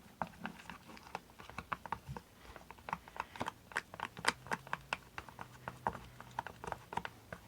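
Glue and shaving-foam slime mixture being stirred in a container: the stirring utensil makes quick, irregular clicks and taps against the container.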